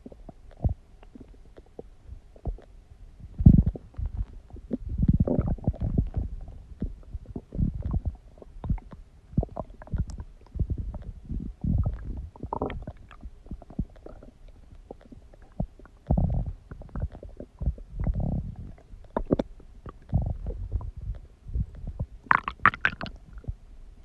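Human stomach growling and gurgling in irregular bursts of low rumbles, some long and some short. A higher, squeaky gurgle comes near the end.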